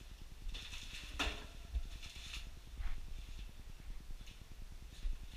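Scattered shuffling and knocking noises of someone walking through a dark building with a handheld camera, with a sharp click about a second in, over a low rumble of handling noise.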